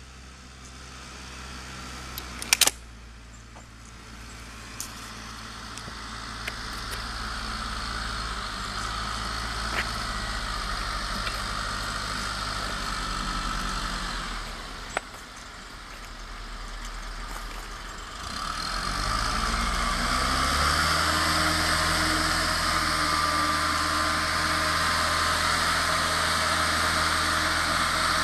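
Diesel engine of a 22.5-ton Dynapac nine-wheel pneumatic tire roller running as it approaches, growing louder. About two-thirds of the way through, the engine note rises and then holds steady at the higher pitch. A single sharp clack about two and a half seconds in.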